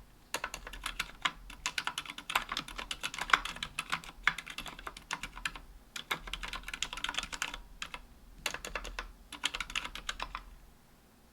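Typing on a KBDfans Tofu 60% aluminium mechanical keyboard with Healios silent linear switches, an aluminium plate and GMK Jamon keycaps. Fast runs of key clicks come with a few short pauses and stop a little before the end.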